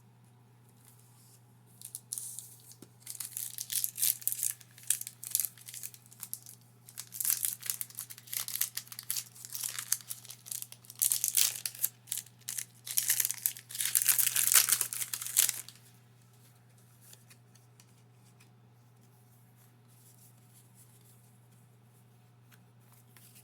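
Foil wrapper of a Pokémon trading card booster pack being torn open and crinkled, in repeated irregular rips and rustles that stop about two-thirds of the way through. A faint steady low hum runs underneath.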